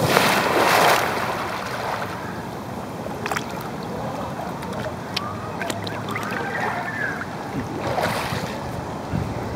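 Pool water splashing and sloshing as a diver's entry spray settles right at a water-level camera, loudest in the first second. The water then laps steadily, and a second splash rises near the end as the swimmer comes up against the camera.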